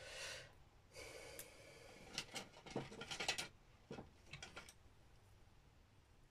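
Faint rustling and a soft breath, then scattered light clicks and taps as small craft supplies are handled on a work table, most of them between about two and five seconds in.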